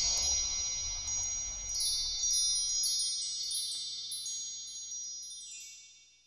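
Wind chimes ringing: high, bright notes struck one after another about every half second, fading away to silence near the end.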